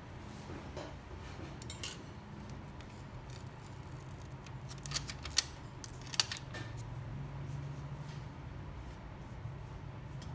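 A handful of sharp little clicks and taps, bunched together about five to six seconds in, over a steady low hum. These are small metal tools and phone parts being handled on an electronics repair bench.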